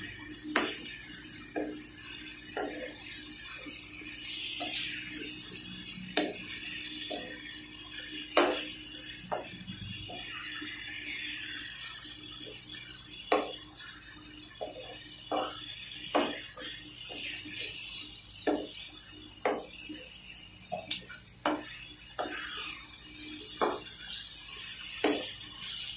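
Wooden spatula stirring and scraping chicken pieces and masala frying in a metal pan, knocking against the pan irregularly about once or twice a second over a faint steady hiss.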